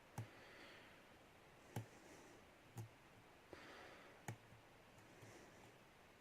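Faint clicks of a lock pick tapping and setting the pins inside a Lockwood V7 pin-tumbler lock under light tension, about five separate clicks roughly a second apart.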